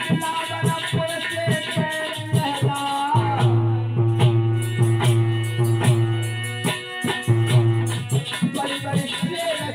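Instrumental music from a live Alha folk performance: a harmonium plays a melody over a held low note, with steady hand-drum beats and jingling small cymbals.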